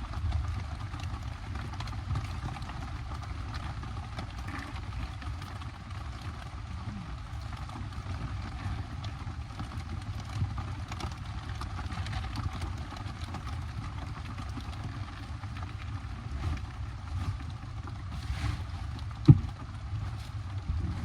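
Steady heavy rain on the bike camper's tarps, with a low rumble throughout. A single sharp thump comes near the end.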